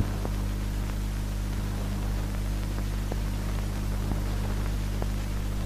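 Steady low hum and hiss of an old film soundtrack with no narration, with a few faint scattered clicks.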